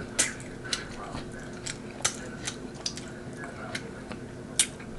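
Close-miked eating sounds from rotisserie chicken: scattered sharp, wet clicks and smacks of chewing and sucking greasy fingers, about eight or nine spread irregularly over the few seconds.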